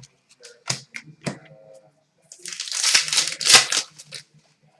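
Trading cards being handled during a pack break: a few light clicks, then about two seconds of loud rustling a little past the middle.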